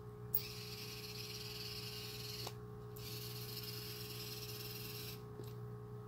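Electric pan motors of two Ibis Tek remote-controlled searchlights whirring as the lights turn together, pausing briefly about two and a half seconds in and stopping about five seconds in. A faint steady electrical hum runs underneath.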